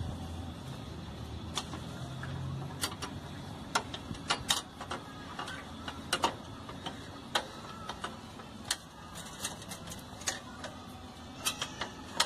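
Irregular sharp clicks and light knocks of a motorcycle's steel rear brake rod and centre-stand parts being handled and moved into position by hand, about one or two taps a second.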